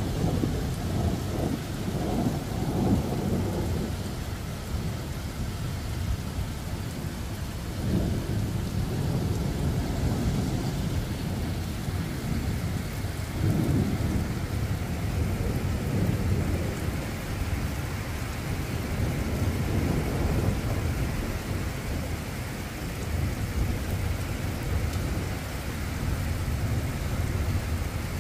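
Thunder rumbling and rolling in long swells over steady rain.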